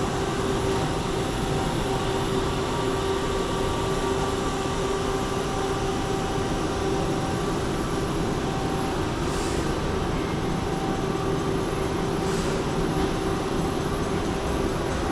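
Train running: a steady rumble with a constant hum, and faint hisses twice in the second half.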